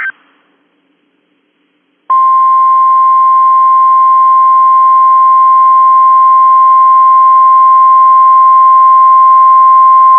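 The last instant of a SAME digital header burst, then near silence, then the NOAA Weather Radio 1050 Hz warning alarm tone starting about two seconds in. It is one loud, steady tone and signals that a warning message is about to be read.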